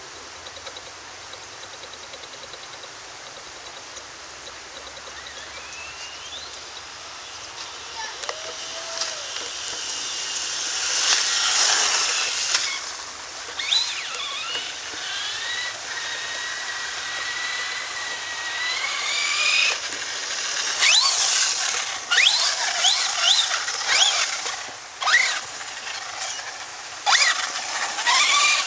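Traxxas Slash 4x4 RC truck's electric motor whining, its pitch climbing and falling as it speeds up and lets off, louder from about ten seconds in. Several sharp knocks in the second half.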